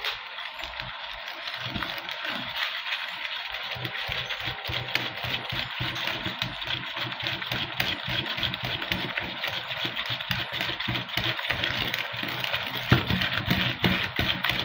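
Cake batter beaten by hand with a hand-held beater in a plastic bowl, rapid even strokes that scrape and knock against the bowl as egg is creamed into the butter-and-sugar mixture.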